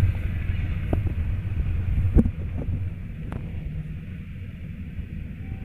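Freight train of covered goods wagons rolling past on the track: a heavy low rumble of wheels with a few sharp clanks over rail joints, the loudest a little over two seconds in. The rumble then drops to a quieter steady roll as the wagons move away.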